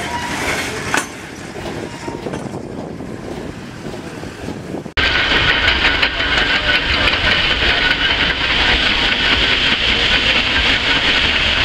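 Antique steam shovels at work: a moderate clatter of machinery for the first few seconds, then, after an abrupt change about five seconds in, a loud steady hiss and rumble from a steam shovel digging and venting steam.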